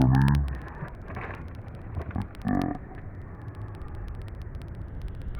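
A low, drawn-out vocal call falling in pitch, ending about half a second in, then two short calls about one and two and a half seconds in, over a steady low rumble.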